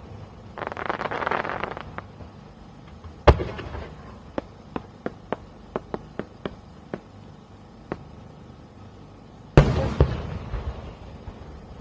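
Aerial fireworks shells bursting: a dense crackle just after the start, a sharp bang, then a string of about ten single pops. Near the end a loud bang rolls away in a long echo.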